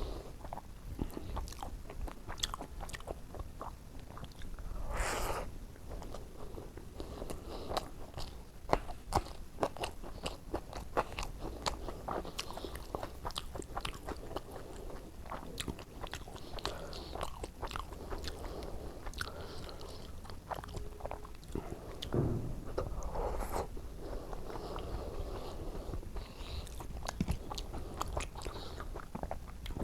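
A person chewing mouthfuls of white rice and oily brinjal curry, with many short wet mouth clicks and smacks and a few longer sloppy sounds.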